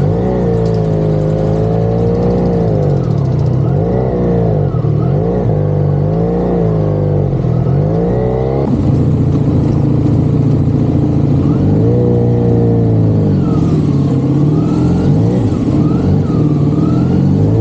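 Motorcycle engine running while riding, its pitch rising and falling again and again as the rider opens and closes the throttle. The sound changes a little about halfway through.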